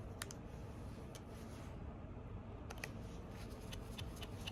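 A few faint, scattered clicks of a pentalobe screwdriver working the bottom screws of an iPhone 8.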